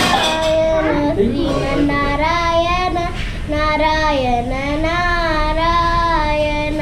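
A young girl singing a devotional sloka, holding long notes that waver and glide in pitch.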